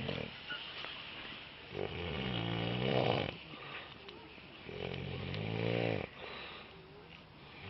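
A man snoring in his sleep: two long snores about three seconds apart, each building in loudness and then cutting off sharply, with quieter breathing between.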